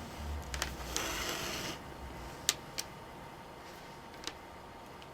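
Handling noise from multimeter test probes being set against a laptop power adapter's tip: a short rustle, then three small sharp clicks spread over a couple of seconds.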